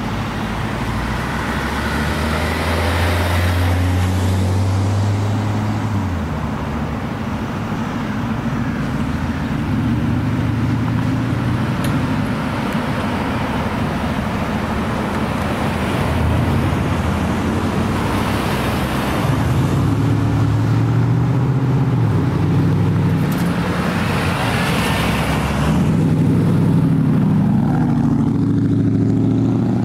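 Motor vehicle engines running, with a steady low drone whose pitch shifts a few times, and several vehicles passing by on the road.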